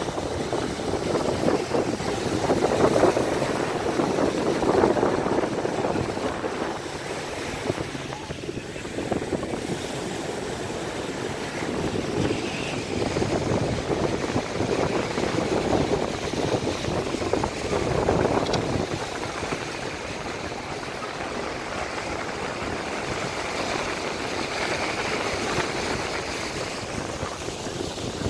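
Small waves washing in over the sand, with wind gusting across the microphone, strongest in the first few seconds and again just after the middle.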